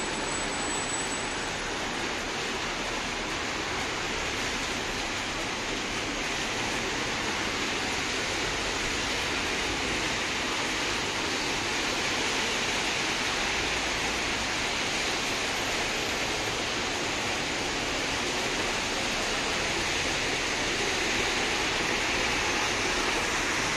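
Steady hiss of city traffic on a rain-soaked road, tyres spraying on wet asphalt mixed with falling rain, growing a little louder in the second half.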